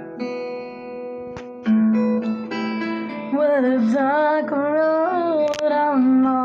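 Song intro: guitar and held tones, then about three seconds in a voice comes in singing a wavering melody.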